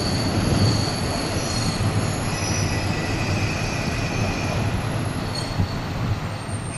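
N-scale model train (MicroAce KiHa 140 series) running along the track, a steady rumble with thin, high wheel squeals coming and going.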